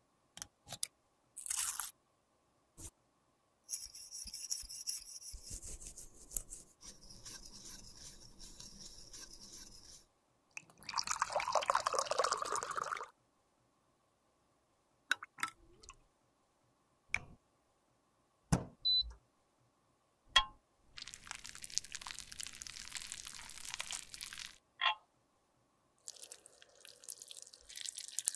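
Close-up handling sounds of a lipstick repair: sharp small clicks and taps of tools on the lipstick tube, stretches of light scraping and rustling, and water and liquid sounds, with a louder rush of noise about eleven seconds in. Near the end, melted lipstick is poured into a metal lipstick mold.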